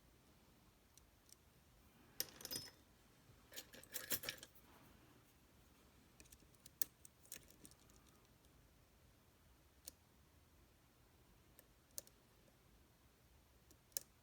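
Small metallic clicks and short rattles from a Tesa TK100 lock being worked by hand with small tools: two brief bursts of rattling clicks a few seconds in, then scattered single clicks.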